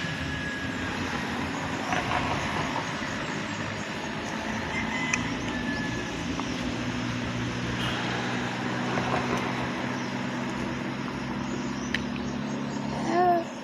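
A heavy vehicle's engine running steadily, a constant low hum. Near the end a short high call, like a voice or hoot, briefly rises above it.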